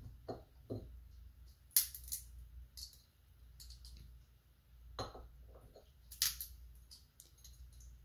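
Metal pliers crushing sunflower seeds and knocking against a ceramic bowl: a few sharp, separate clicks and cracks, the loudest a little under two seconds in and others about five and six seconds in.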